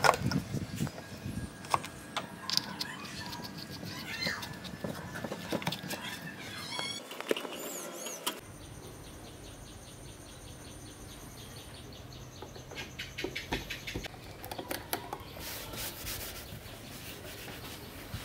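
Clicks, knocks and light rattles of a plastic fan blade and wire grille being handled and fitted onto a stand fan, with a few bird chirps about halfway through and another run of clicks later.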